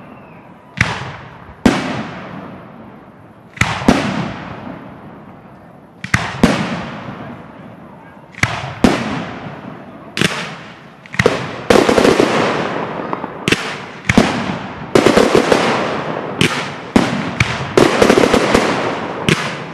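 Fireworks display: aerial shells bursting in sharp, loud bangs, each followed by a long fading echo. The bangs come a second or more apart at first, then quicker and denser about halfway through.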